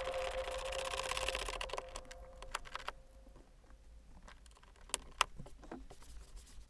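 A few sharp clicks and taps of hands handling plastic door trim around the inner door handle. The first two seconds or so carry a fading held tone.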